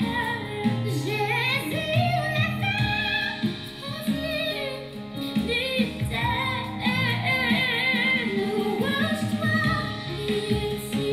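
A song playing: a singer's voice with vibrato over instrumental backing.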